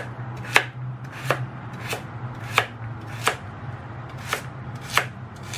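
Chef's knife chopping peeled carrot on a plastic cutting board: about nine sharp knocks of the blade against the board at an even pace, roughly one and a half a second. A low steady hum runs underneath.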